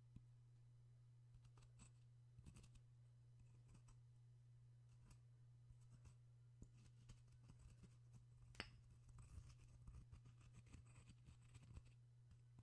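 Faint scraping and clicking of a pestle worked against the inside of a mortar: irregular small scratches and taps, busier in the second half, with one sharper click about eight and a half seconds in, over a low steady hum.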